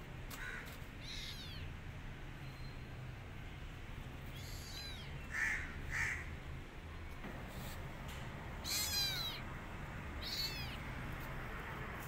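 Young kitten meowing repeatedly: high-pitched cries a second or more apart, with two short louder calls about five and six seconds in.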